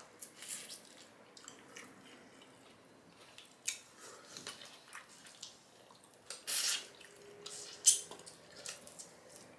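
Wet close-up eating sounds: lips smacking and sucking on fingers and pieces of saucy stewed fish, heard as scattered short wet clicks. A longer burst comes around six and a half seconds, and the sharpest click near eight seconds.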